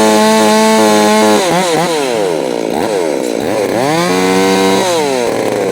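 Stihl MS 261 two-stroke chainsaw revved up to full throttle and held there for about a second and a half, dropping back, then revved and held again about four seconds in before easing off.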